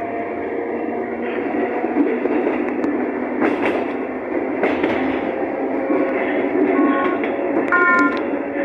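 Toshiba electric multiple unit heard from on board while running: steady rumbling running noise with a faint steady whine, two sharp knocks about halfway through, and brief high-pitched tones near the end.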